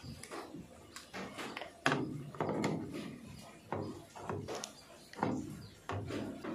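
Irregular clicks, taps and knocks of a screwdriver against the plastic water inlet valve of a washing machine, and of the plastic parts being handled, with a few fuller thuds.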